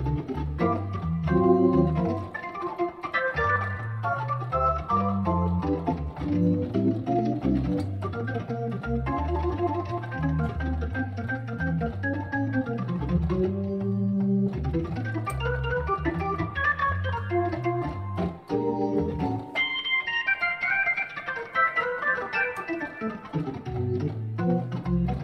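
Custom-assembled Hammond B3/A100 tonewheel organ played live: chords and melody over a stepping bass line in the low notes, with a fast run in the high notes about twenty seconds in.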